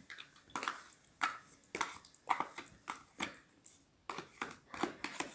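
Short, irregular soft rustles and light taps, about two a second, as softened butter is squeezed out of its wrapper by hand and drops into a plastic bowl.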